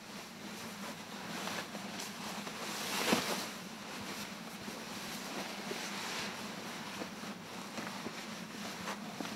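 Wind blowing on an exposed mountain slope and buffeting the camera microphone: a steady rushing noise that swells briefly about three seconds in, with a faint low hum underneath.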